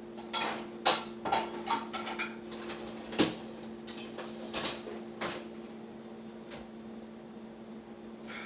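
Kitchen utensils and dishes clattering and clinking in a run of knocks over the first five seconds, the loudest about a second and three seconds in, as someone rummages for a knife. A steady low hum runs underneath.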